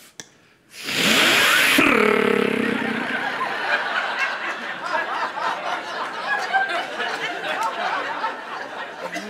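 A loud hissing whoosh made with the mouth close into a microphone about a second in, ending in a short wobbling twang, mimicking a thrown knife sticking into a wall. Then a room audience laughs for several seconds, slowly tapering off.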